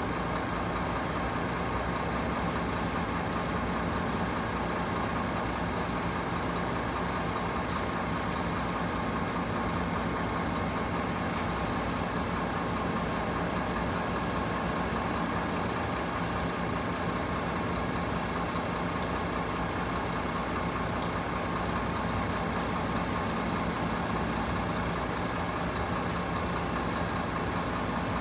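Steady drone of engines idling, with a constant low hum and a fainter higher tone that do not change.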